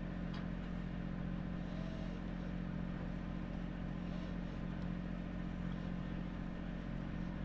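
Catamaran's starboard engine running at a steady, even drone while the boat motors along.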